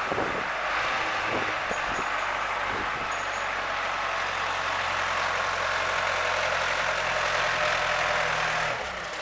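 Bulldozer working, its engine running steadily with a dense mechanical rattle, and a few sharp knocks in the first three seconds.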